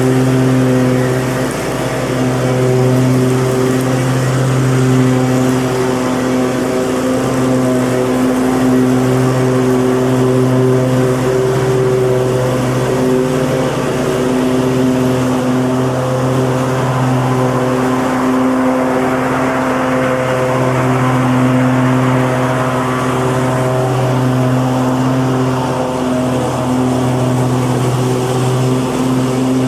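Lawn mower engine running steadily at an even speed, with only small wavers in pitch and loudness.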